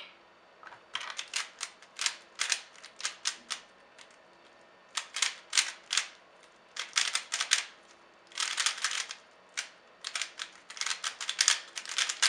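Cyclone Boys 3x3 speedcube being turned fast during a timed solve: rapid runs of plastic clicking and clacking, starting about a second in, with several short pauses between runs.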